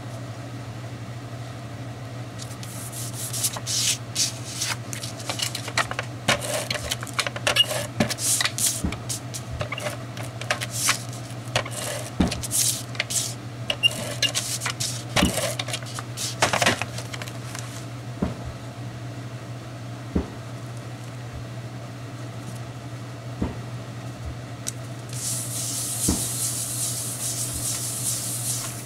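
Cardstock being handled and a handheld adhesive tape runner pressed and drawn along the paper, making irregular clicks, crackles and scrapes, with a steady low hum underneath. Near the end comes a few seconds of steady hiss, like paper sliding across paper.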